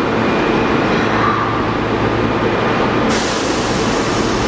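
Osaka Midosuji Line 21 series subway train coming to a stop at an underground platform, a steady rumble. About three seconds in, a sudden hiss of air starts and keeps going.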